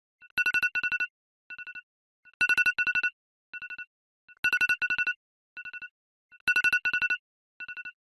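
Electronic telephone ringtone: trilling rings at two steady pitches, each loud ring followed by a softer one, repeating about every two seconds.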